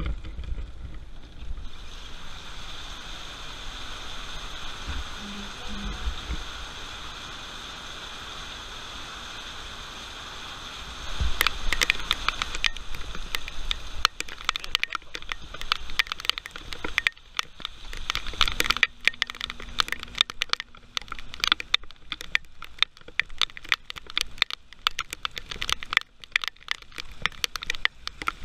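Heavy rain. At first it is a steady hiss of rain heard from under a patio roof, then about a third of the way in it grows louder and becomes a dense crackle of raindrops striking the camera close up.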